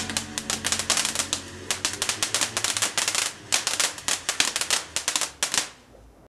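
Rapid, irregular clicking like typewriter keys, a text-scramble sound effect. The clicks thin out and fade away near the end.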